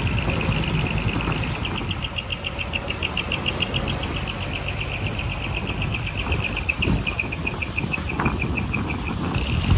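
Low, steady diesel rumble of heavy earthmoving machinery at work, with an insect's rapid, even chirping trill over it that fades out near the end. A couple of sharp clicks or knocks come late on.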